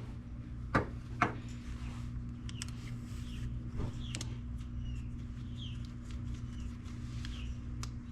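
A few sharp clicks and knocks of hand tools being handled, over a steady low hum.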